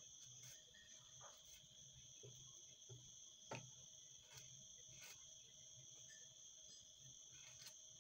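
Near silence: a faint steady high-pitched background tone, with a few soft ticks and scrapes as a scissor blade is drawn along feather shafts to curl them, the clearest about halfway through.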